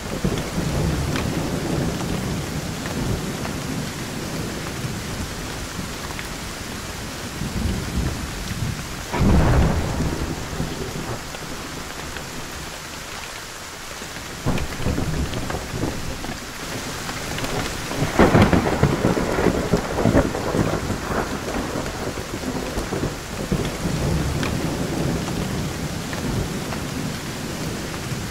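Thunderstorm with steady rain and rolling thunder. A sharp clap comes about a third of the way in, then a quieter lull. The loudest peal follows a little past halfway, crackling at first and then rumbling off, with more low rumbling near the end.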